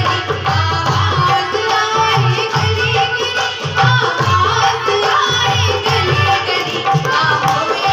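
Devotional jagrata bhajan music: a melody line over a steady, rhythmic hand-drum beat.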